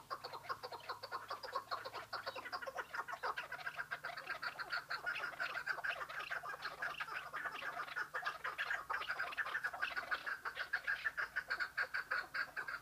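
Chukar partridge calling, a fast continuous series of repeated chattering notes that builds a few seconds in and keeps going.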